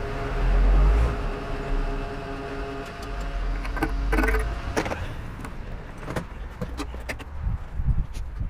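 Motorcycle being refuelled at a petrol pump: the fuel dispenser hums steadily for the first few seconds, then metallic clinks and knocks of the nozzle and filler cap being handled.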